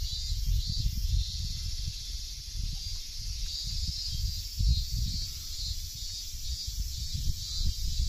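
Dense chorus of cicadas singing in the trees: a steady high shrill with a slight pulsing. Under it an uneven low rumble on the microphone swells about halfway through and again near the end.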